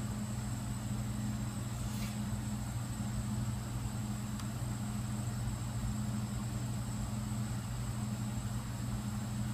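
Steady low electrical hum of running equipment with a faint high-pitched whine, and a faint click about two seconds in.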